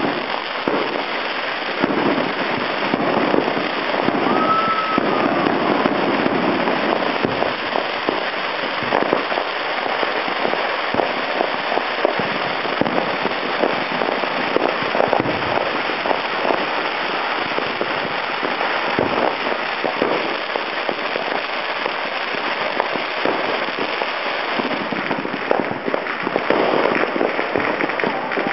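Dense, unbroken crackle of many firecrackers popping at once, with a short whistle about four seconds in.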